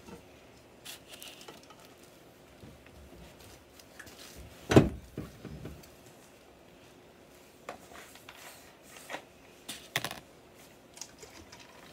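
Scattered small knocks and clicks of painting things being handled on a tabletop, with one louder, deeper thump about five seconds in.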